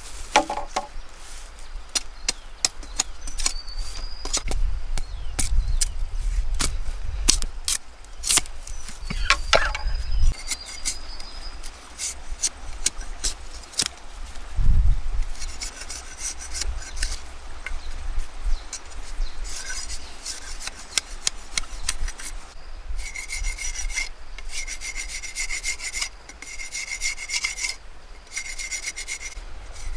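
Machete working split bamboo: a run of sharp clicks and cracks as the blade strikes and splits the bamboo, then repeated rasping strokes as it scrapes and shaves the bamboo strips.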